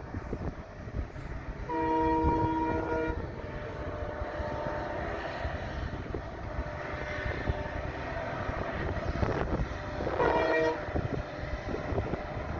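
Indian Railways goods train locomotive sounding its horn in the distance: one chord about a second and a half long near the start, then a shorter second blast about 10 seconds in. Wind buffets the microphone throughout.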